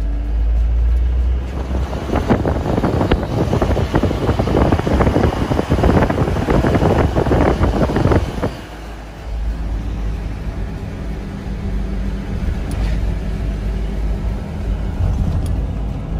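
Car running along a road, heard from inside the cabin: a steady low road rumble, with a louder, rougher rushing noise for about six seconds in the middle, over a bridge, before the plain rumble returns.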